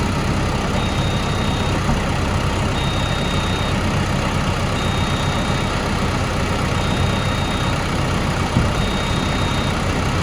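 Heavy diesel engine idling steadily, with a high warning beep repeating about every two seconds.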